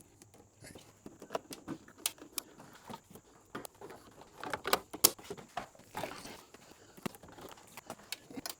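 Wire harness being fed through plastic interior trim: rustling with scattered sharp clicks and ticks of cable and plastic, the sharpest about five seconds in.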